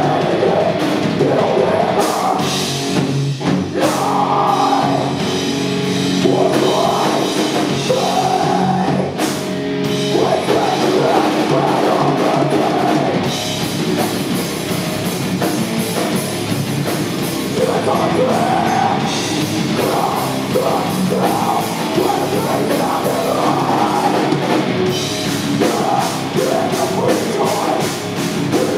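A heavy rock band playing live, loud: electric guitar, bass guitar and drum kit, with a woman singing at times over them.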